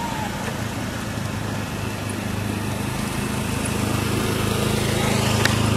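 A small engine running steadily at an even pitch, slowly growing a little louder.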